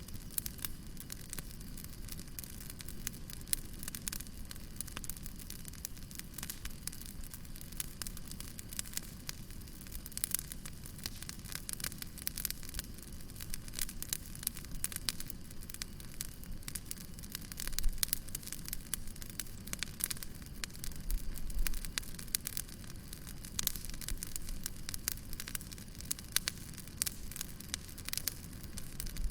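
Wood fire crackling: a dense run of sharp pops and snaps over a steady low rumble and hiss, with a few louder pops along the way.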